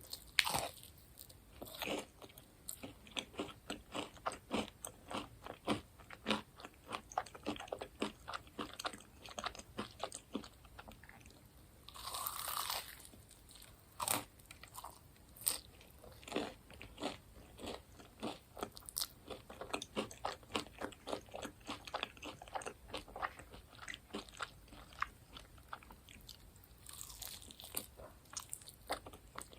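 Close-miked crunching and chewing of crispy fried food: a quick, irregular run of crisp bites and crunches, with a longer, denser crunch about twelve seconds in.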